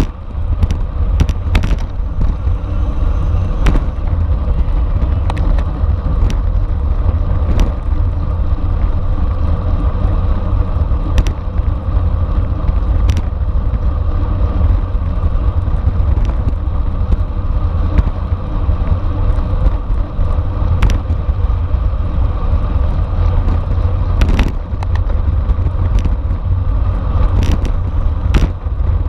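Steady, loud wind rumble on the microphone of a camera riding along on a racing bicycle at speed, with scattered sharp clicks and knocks.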